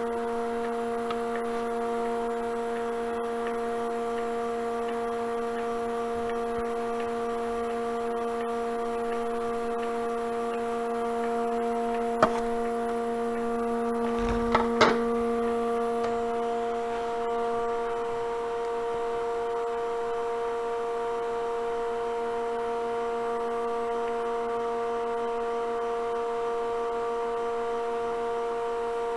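Steady pitched hum of a wood lathe with a vacuum chuck running, with two brief light knocks about twelve and fifteen seconds in. The lowest part of the hum drops away about halfway through.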